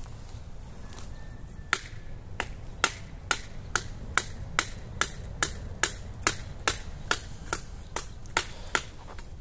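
A stick striking wood over and over in an even rhythm, about two sharp taps a second. The taps start a couple of seconds in and stop near the end.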